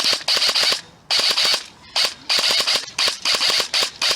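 Airsoft electric rifle, an Ares Amoeba Honey Badger AM-014, firing about seven short full-auto bursts of rapid clicking shots, each burst lasting well under a second.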